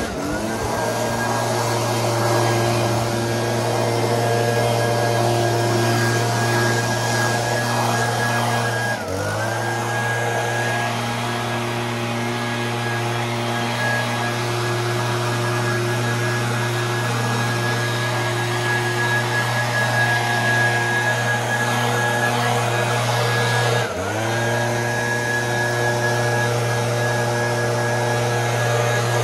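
Electric garden power tool motor spinning up at the start, then running steadily at high speed, easing off and spinning back up twice, about nine seconds in and again about five seconds before the end.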